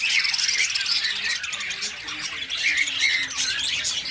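A large flock of caged budgerigars chattering, with many short high calls overlapping continuously and a few louder calls standing out.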